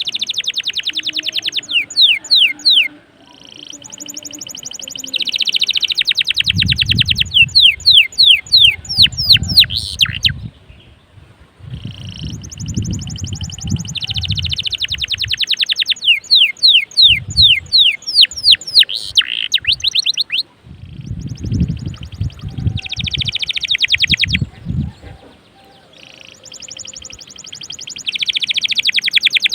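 Domestic canary singing at full volume: long fast trills and rolls of rapidly repeated notes, some passages as quick downward-sweeping notes, broken by short pauses. Low rumbles sound underneath at times.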